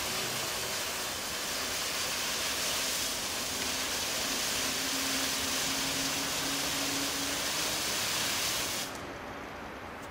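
Kururinpa handheld spinning firework burning, its spray of sparks making a steady hiss. The hiss cuts off about nine seconds in as the firework burns out.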